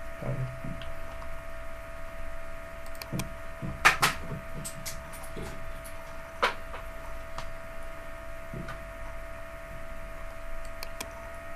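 Steady electrical hum with a few sharp clicks over it: two close together about four seconds in, one about six and a half seconds in, and fainter ticks between.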